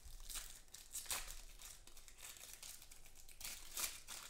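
Foil wrapper of a football trading card pack being torn open and crinkled by hand: a run of crackles, loudest near the end.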